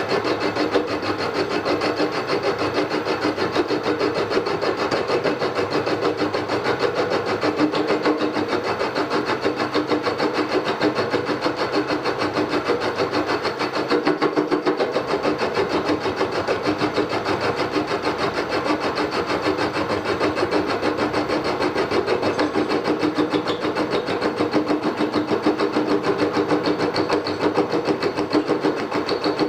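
Milling machine taking a cut with the cutter in the workpiece: a steady running whine with a fast, even chatter from the cutter. The part is bouncing around too much in its clamping.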